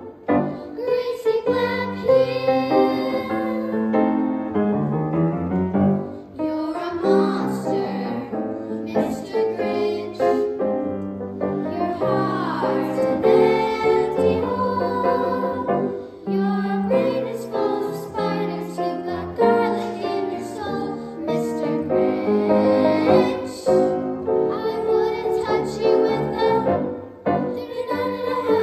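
A singer performing a song with piano accompaniment, phrase by phrase with short breaks between phrases.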